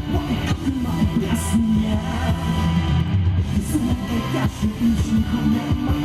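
Live rock band playing an instrumental passage, with electric guitar and drums.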